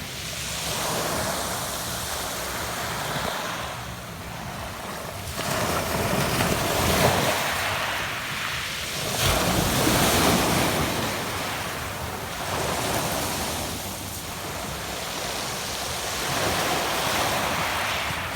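Sea waves washing onto a pebble beach, the surf swelling and falling back every few seconds.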